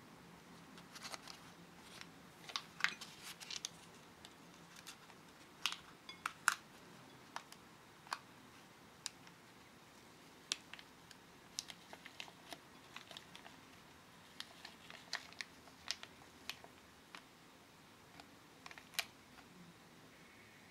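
A paper printing sheet being handled and peeled off a soft, spongy candy pancake: faint, irregular crinkles and small ticks of paper under the fingers, scattered all through.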